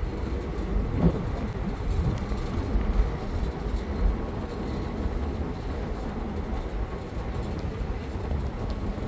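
Steady low rumble of a harbour ferry's engines under way, heard from the open rear deck.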